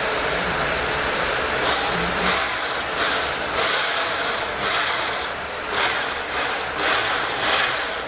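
Nodha pipe cutting and beveling machine running and cutting into a pipe: a steady machine and metal-cutting noise. From about two seconds in, a harsher scraping swells and fades about once a second.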